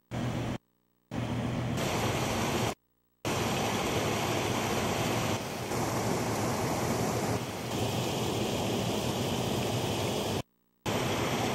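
Muddy floodwater rushing over a concrete road crossing and churning in rapids below, a steady roar of water. The sound drops out to silence briefly, about half a second in, again just before three seconds in, and near the end.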